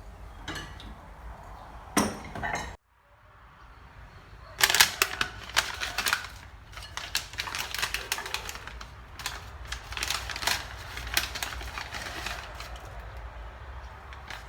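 Kitchenware clattering: a few clinks, then a long run of quick, irregular taps and knocks.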